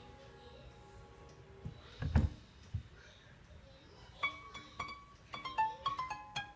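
A thump about two seconds in, then the wire strings of a multi-wire soap cutter plucked one after another, each twanging and ringing at a slightly different pitch, a check that the wires are tight enough to cut.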